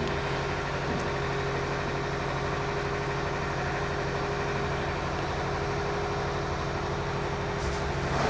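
Washing machine running with a loud, steady generator-like drone. The noise comes from a transit part left lying near the motor, which should have been removed.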